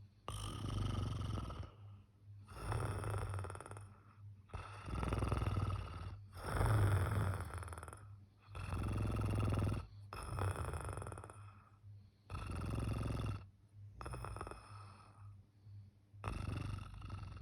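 A sleeping person snoring loudly: a long noisy snoring breath about every two seconds, some of them coming in pairs close together.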